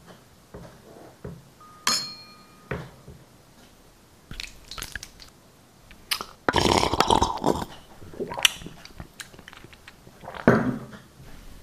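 Wet, exaggerated mouth sounds of slurping and gulping thick slime from a wine glass, loudest in a long gulp about six and a half seconds in and again near the end. A short glass ring sounds about two seconds in.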